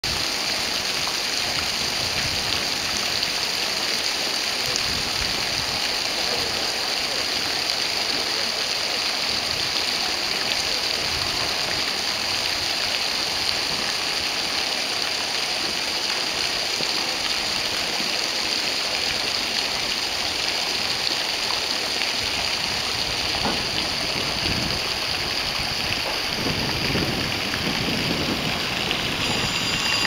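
Water spraying and gushing through the seam between the closed lock gates of the Chittenden Locks, a steady rushing hiss: Salmon Bay water leaking into the lock chamber.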